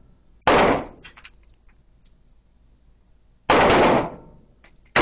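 Two gunshots about three seconds apart, each a sharp crack that dies away over about half a second.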